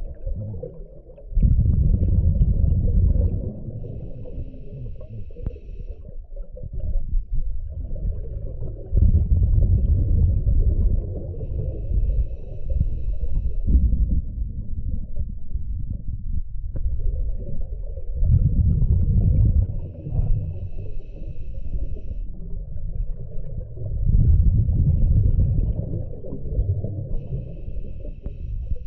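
Scuba diver breathing through a regulator: a thin, steady hiss from the demand valve on each inhale, then a loud, low rumble of exhaled bubbles. About four slow breaths, each several seconds apart.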